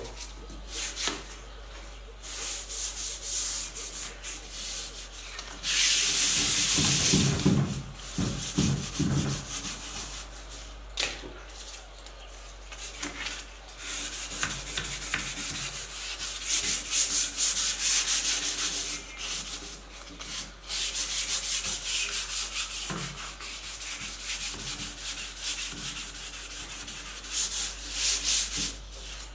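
Hand-sanding a cabinet's lacquered wood finish with sandpaper, in runs of quick back-and-forth strokes with short pauses between them. This is the smoothing of the dried sealer coat before the next coat goes on.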